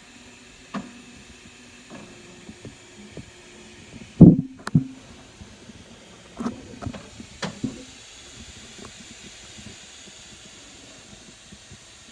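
Clicks and knocks from handling a 3D printer, the loudest a pair of knocks about four seconds in, over a steady machine hum that dies away around the same time.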